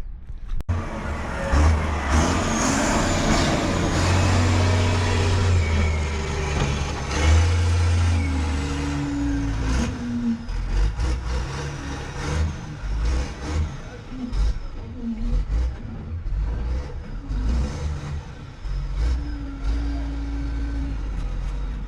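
Motor vehicle engine running and pulling, a low hum that swells and eases, with road noise and occasional knocks. The sound starts abruptly about half a second in.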